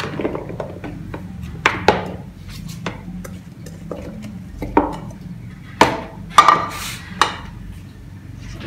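Chopped apple pieces tipped off a plate into a plastic storage box: a scattered run of knocks and clatters as the plate taps and scrapes on the box rim and the pieces drop in, loudest about six to seven seconds in.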